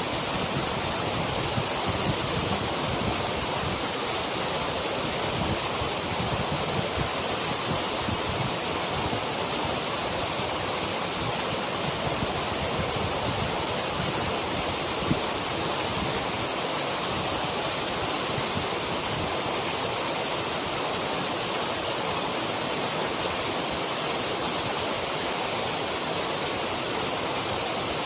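Waterfall rushing steadily, a loud, even roar of falling water.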